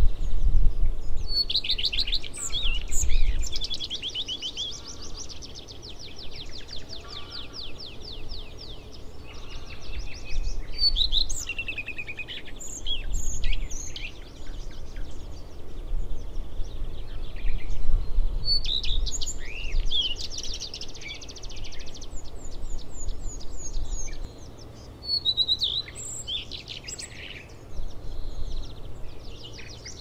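Male common redstart singing: four song phrases several seconds apart, each opening with a clear high note and running on into a quick jumble of notes and trills.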